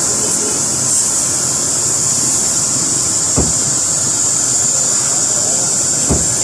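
Car-wash water jet spraying, a steady hiss over a running motor, with two brief dull thumps about three and six seconds in.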